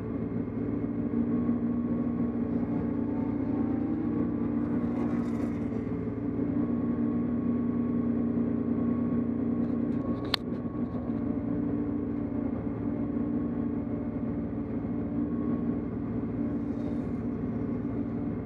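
A 1967 Porsche 911S's air-cooled flat-six idles steadily, heard from inside the cabin. There is a single sharp click about ten seconds in.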